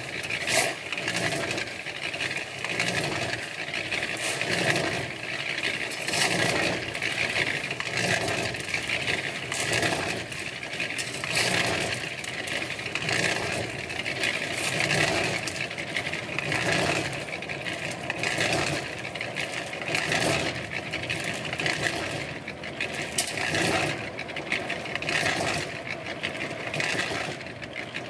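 Small electric cement mixer running, its drum churning a sand-and-gravel concrete mix with a steady rattle that swells into a louder swish about every second and a half to two seconds. A shovel scrapes in loads of aggregate alongside.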